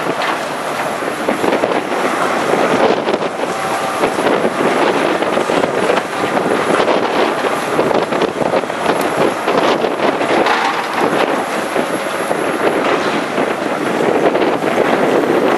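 Hydraulic excavators working through a heap of earth and wooden debris: the diesel engines run steadily, with continual crunching and clattering as the buckets dig and sort.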